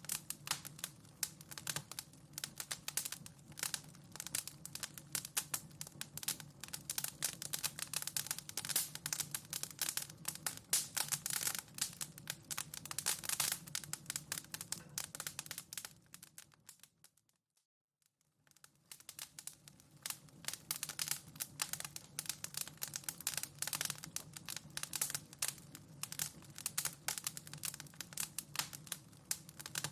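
Wood fire crackling in a fireplace: a dense, irregular run of sharp crackles and pops over a low steady hum. About two-thirds of the way through, it fades out to near silence for a moment and then fades back in.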